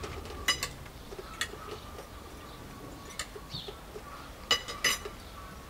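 Kitchenware clinking and knocking now and then, with two sharper clinks close together near the end.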